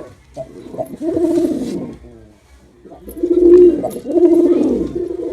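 Male pigeon cooing: short notes, then a deep warbling coo about a second in and two longer coos after a brief pause.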